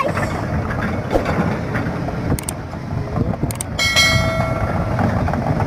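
Earthmoving machine's diesel engine running with a dense low rumble, with a couple of clicks and a brief steady higher tone about four seconds in.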